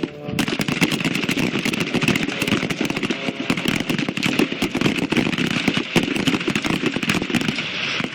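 Gunfire from a whole firing line of shooters, the shots overlapping into a continuous crackle. It starts just after the "Target" command and continues until shortly before the end, during a timed drill of controlled pairs fired standing and then kneeling.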